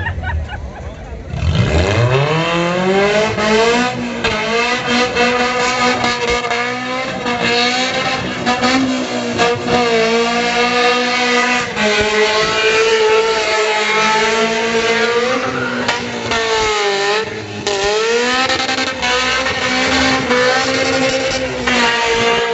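Toyota 3S-GE 2.0-litre inline-four engine revved up sharply about a second and a half in, then held at high revs, dipping briefly twice near the end. The owner puts the engine's noise down to piston slap from overheating.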